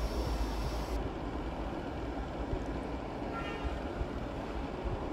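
A chef's knife slicing a potato on a plastic chopping board, over a steady low rumble of background noise.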